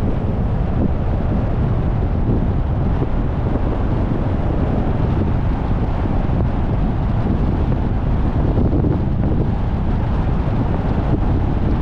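Steady wind buffeting the microphone over the rumble of a moving car's road noise.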